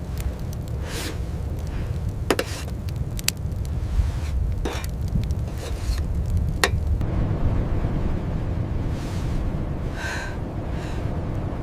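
A steady low rumble, with about five sharp cracks or knocks scattered through the first seven seconds and a few soft hissing swells near the end.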